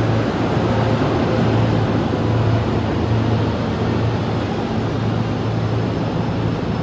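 E531 series electric train at a station: a steady low hum that swells and fades every half second or so, under a broad rumble.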